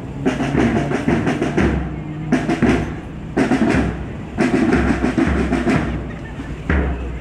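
Children's marching drum band playing: snare and bass drums beating a steady march rhythm, with melodicas sounding over it.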